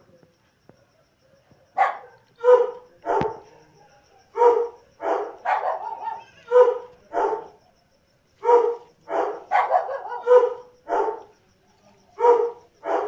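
A dog barking repeatedly in short, pitched barks, about two a second, starting about two seconds in with a brief pause in the middle.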